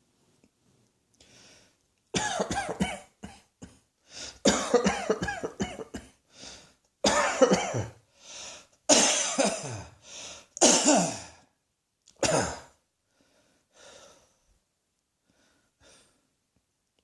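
A person coughing in about six fits of several voiced coughs each, with short breaths drawn between them; the fits stop about thirteen seconds in, leaving only faint breathing.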